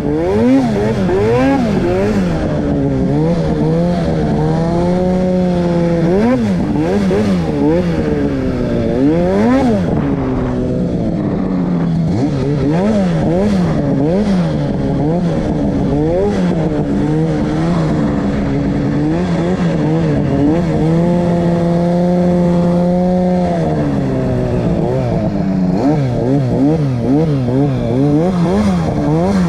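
Two-stroke mountain snowmobile engine being ridden with constant throttle work, its pitch rising and falling many times in quick blips. It holds a steadier, higher note for about two seconds around four to six seconds in, and again for about three seconds near the twenty-second mark.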